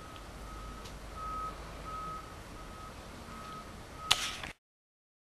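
Electronic beeps at one steady pitch, repeating about three times every two seconds over a low background rumble. Near the end there is a loud knock, and then the sound cuts off abruptly.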